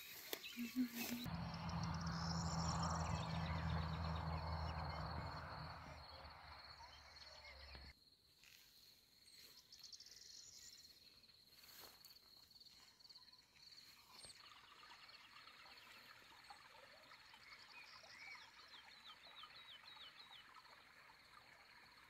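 Faint meadow ambience: birds chirping and a thin steady high tone, with a short run of repeated chirps near the end. For the first eight seconds a louder low hum with a rushing noise sits over it and stops suddenly.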